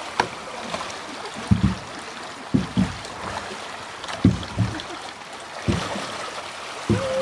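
Fast water rushing down a narrow concrete irrigation ditch around inflatable kayaks, with several short, dull knocks. Near the end a steady, high held note begins.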